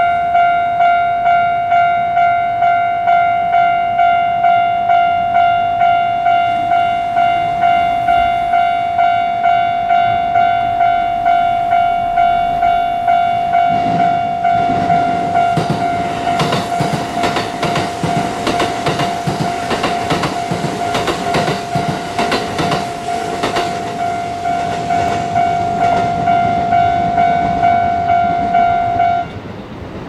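A level-crossing warning bell rings in rapid, even dings while a Kintetsu train rolls through, its wheels clattering over the rail joints for roughly the second half. The bell stops just before the end as the crossing clears.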